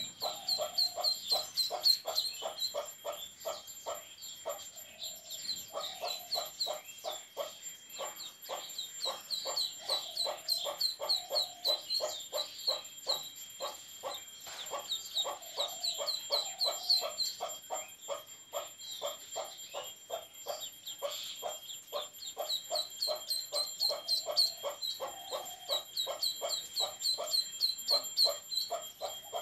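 Duckling peeping loudly and rapidly, about four short peeps a second, in long runs with brief pauses.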